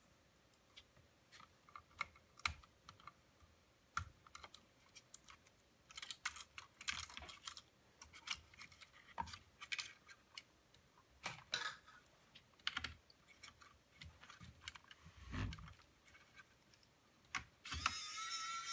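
Scattered small clicks, taps and brief scrapes, as hands work on the plastic case and small parts of a laptop being taken apart. A little before the end a steady whirring with a high whine starts.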